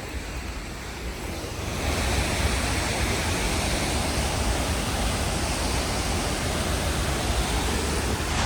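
Steady rushing roar of a waterfall, growing louder about two seconds in and then holding.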